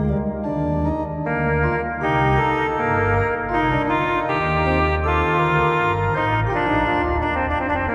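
Organ music: sustained chords that change every second or so.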